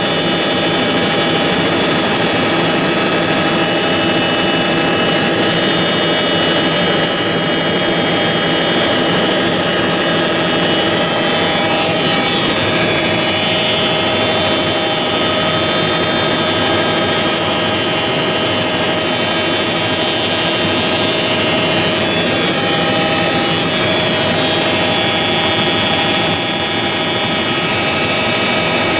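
Helicopter in flight heard from inside the cabin: a loud, steady drone of engine and rotor, with several high whining tones held level throughout.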